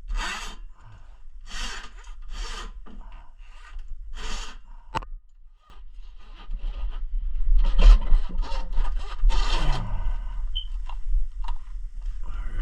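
Rough scraping and rubbing: about six separate strokes over the first few seconds, a sharp click about five seconds in, then more continuous scraping over a steady low hum.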